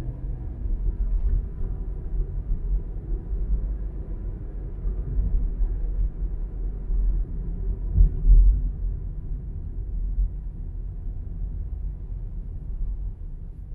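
Low rumble of a car's engine and tyres while driving along a road, with a louder swell about eight seconds in, easing off near the end.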